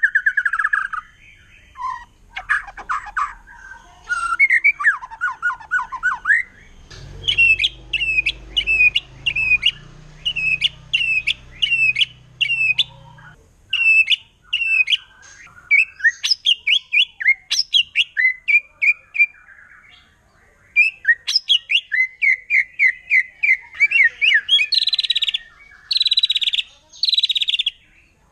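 White-rumped shama (murai batu) singing in runs of fast, sharply repeated whistled notes, the rapid-fire 'nembak' (shooting) delivery. The phrases come about two a second, then faster, with the loudest dense bursts near the end.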